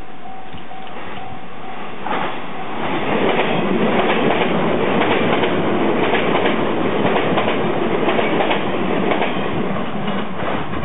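A 485 series 3000-subseries electric multiple unit passes a level crossing, its wheels clattering rapidly over the rail joints. The steady tone of the level-crossing warning bell stops about two seconds in, as the loud train noise builds and holds.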